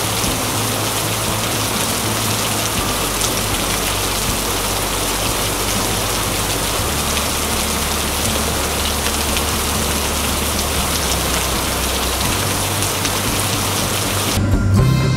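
Waterfall: water dropping from a high cliff and splashing onto rock, a steady rushing hiss with no change in level. Music comes in near the end.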